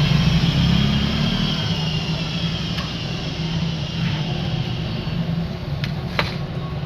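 A steady mechanical hum with a faint high whine that slowly falls in pitch, and a few sharp clicks near the end.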